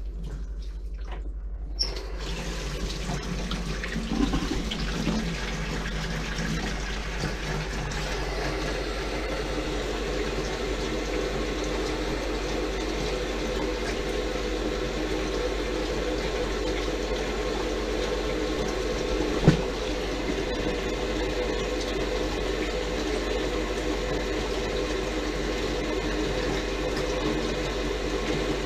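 Kitchen tap running into a stainless steel sink, the water pouring down the open drain, starting about two seconds in and running steadily. One sharp knock about two-thirds of the way through.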